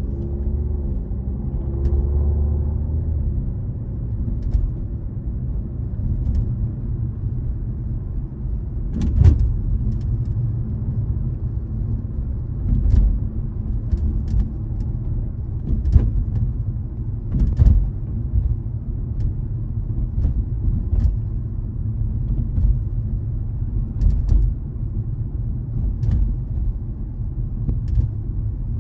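Sharp metallic clicks from the trunk area of a BMW G20 M340i, coming at irregular intervals a second to several seconds apart, over the steady low road rumble of the car on the move. A rising engine note is heard in the first few seconds.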